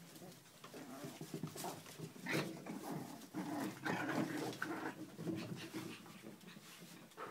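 Chinese Crested puppies whimpering and vocalising in short, irregular bouts, busiest around the middle, with a few sharp clicks of paws on the wooden deck.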